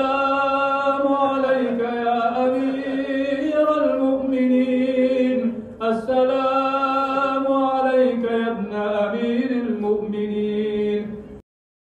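A single voice chanting an unaccompanied devotional salaam in long, slowly gliding held notes. There is a brief break about six seconds in, and the chant stops shortly before the end.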